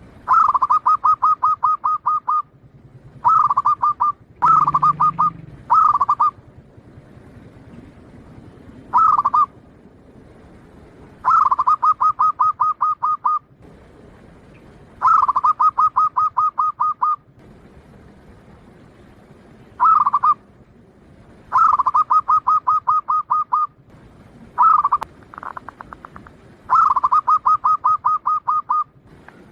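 Zebra dove (perkutut) singing: repeated phrases of rapid, even cooing notes, about a dozen phrases of one to two seconds each, with short pauses between them.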